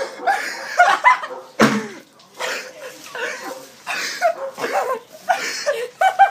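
Boys laughing hard in repeated short bursts. A single sharp thump comes about a second and a half in.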